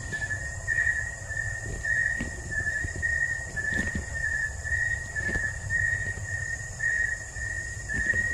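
Night insects: a cricket chirping steadily, about two high, even-pitched pulses a second, over a fainter continuous higher insect hum. Soft footsteps and handling thumps underneath.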